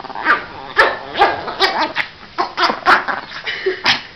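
Small long-haired dog barking in a rapid series of about nine sharp, loud barks, roughly two a second, while snapping at a person's hand in rough play; the barks stop just before the end.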